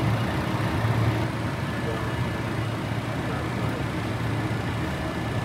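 Steady low hum and rush of a Boeing 747-400's engines running at ground idle after start, heard inside the cockpit.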